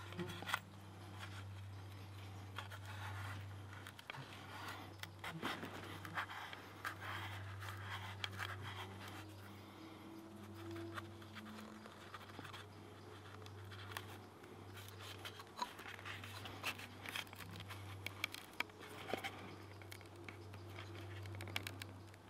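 Lime bast fibres rustling and scratching against wood as they are worked and wound tightly round a wooden stick joint, with many small crackles and clicks. A steady low hum runs underneath.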